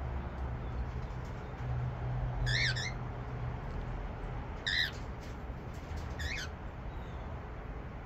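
A small parrot in an aviary giving three short calls about two seconds apart, over a steady low rumble.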